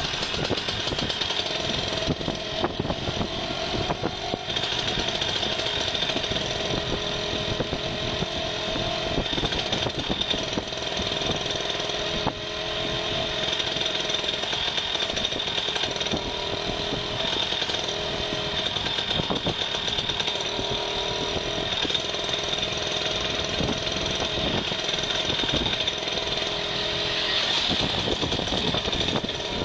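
A motor vehicle's engine running steadily at cruising speed, with wind rumbling on the microphone.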